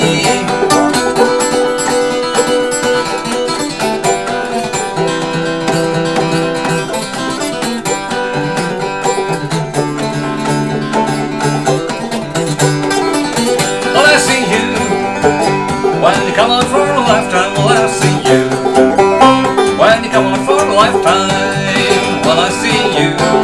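Clawhammer banjo and acoustic guitar playing together in an instrumental break between verses of an old-time song.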